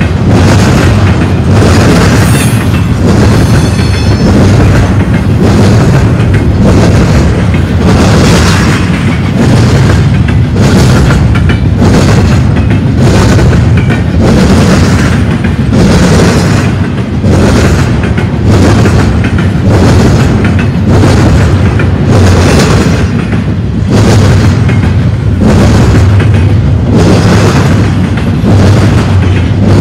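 Double-stack container well cars rolling past at close range: a loud, steady rumble of steel wheels on rail that surges every second or so as the car trucks go by. A brief high squeal comes about three seconds in.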